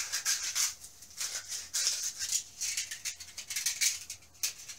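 Hand sanding: sandpaper rubbed back and forth over a 3D-printed Hatchbox wood-fill PLA figure, an uneven run of short, scratchy strokes.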